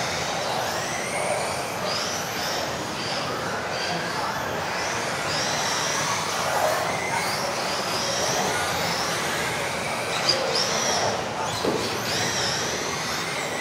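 Several electric RC off-road buggies racing together: overlapping high motor whines that keep rising and falling as they speed up and slow down, over a steady hiss.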